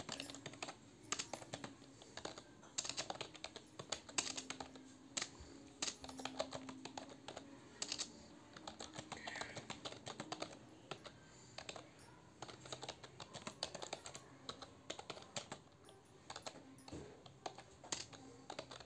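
Computer keyboard keys clicking in fast, irregular touch-typing, a steady stream of keystrokes.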